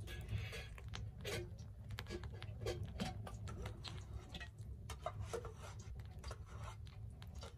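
Metal skimmer scraping a soft, wet mixture off a steel plate into a large metal cooking pot: scattered clicks and scrapes of metal on metal, with a few brief rings from the plate.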